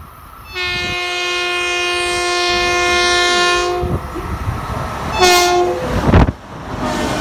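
Long Island Rail Road M7 electric train passing through a station at speed, sounding its horn: one long blast of about three seconds starting half a second in, then a short blast about five seconds in. Just after the short blast comes a loud rush of wind and wheels as the train passes close by.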